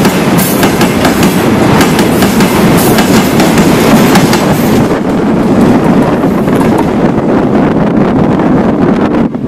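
Freight train of tank wagons passing close by on the next track: a loud, steady rumble with clickety-clack of wheels over rail joints. About halfway through, the high clatter dies away as the last wagons pass, leaving a lower steady rush.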